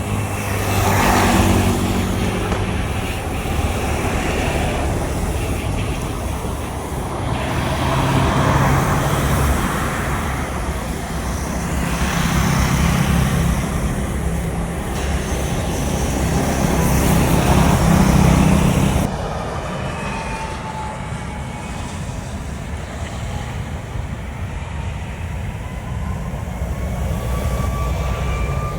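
Jet airliner engines at a distance mixed with road traffic, rising and falling in swells. After a sudden cut, a steadier rumble follows, with a faint engine whine slowly climbing in pitch near the end.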